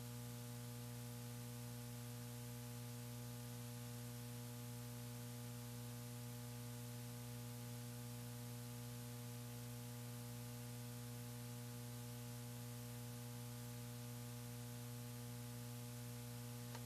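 Steady low electrical hum with a constant hiss over it, unchanging throughout.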